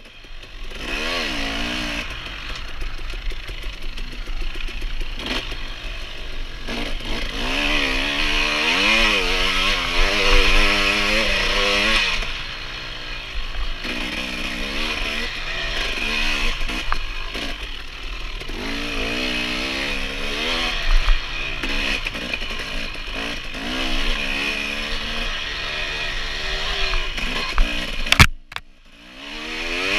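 Dirt bike engine revving up and down over and over as the bike is ridden hard. Near the end a sharp knock, then the engine sound drops almost away for about a second before picking back up.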